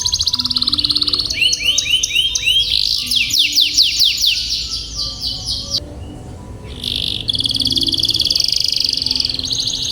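Canary singing: long rapid rolled trills, a run of quick downward-sweeping notes from about a second in, a short break around six seconds, then another long rolled trill.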